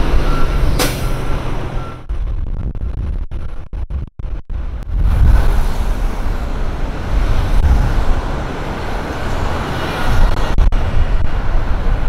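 Heavy truck engine and traffic noise. A truck's reversing beeper sounds in the first two seconds. The sound cuts out several times around three to four seconds in, then the rumble carries on.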